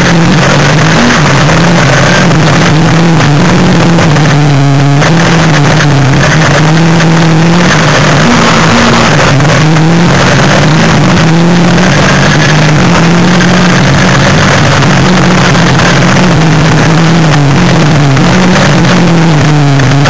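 Autocross race car's engine heard from inside the cabin at racing speed, loud, its pitch climbing and dropping over and over as the driver revs through the gears and lifts for corners.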